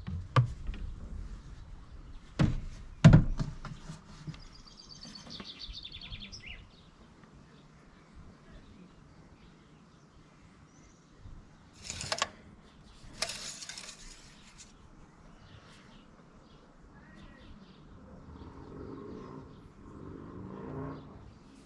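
Scattered knocks and clunks of hand work on an engine, the loudest two about two and a half and three seconds in, with a short bird trill soon after and brief rustles in the middle.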